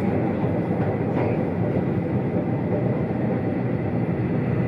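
Keihan 800 series Keishin Line train running along the track, heard inside the driver's cab: a steady running noise of wheels on rail.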